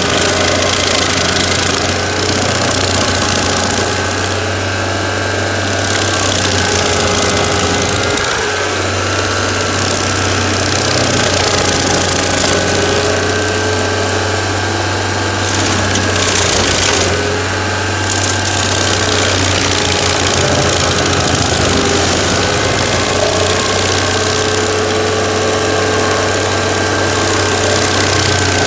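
Walk-behind stump grinder's engine running steadily while its cutter wheel grinds into an oak stump, throwing out wood chips: a loud, continuous engine drone under the grinding of the teeth in the wood, swelling and easing a little as the wheel sweeps across the stump.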